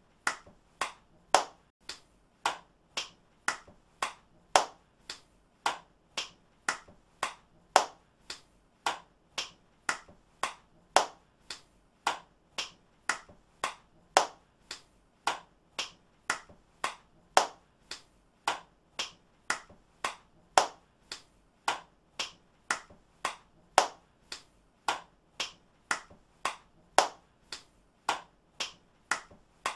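Hand claps repeated in a steady rhythm, about two a second, each a sharp, dry clap, some louder than others.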